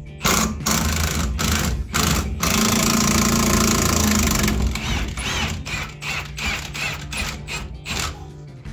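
Impact wrench hammering on the rear shock absorber's long lower through-bolt. It runs in several short bursts, then one long run of about two seconds, then quicker stuttering bursts as the bolt is undone.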